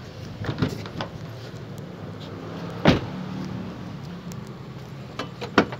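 A 2017 Suzuki Ertiga's doors being worked: a few light clicks from a door handle, then a single door shut about three seconds in, and sharp latch clicks near the end, over a steady low hum.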